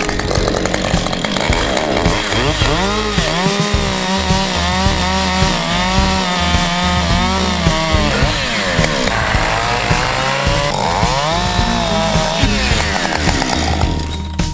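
Husqvarna 550 XP G two-stroke chainsaw cutting wood, its engine pitch sagging under load and rising again in repeated sweeps.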